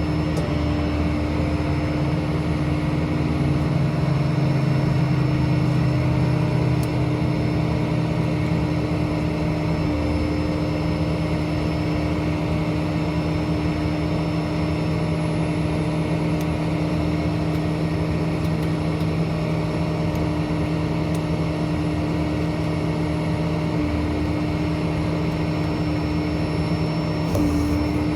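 Ford 6.0 Power Stroke V8 turbo-diesel running steadily with the PTO engaged, driving the truck's hydraulic system and air compressor: a constant engine drone with a steady hum.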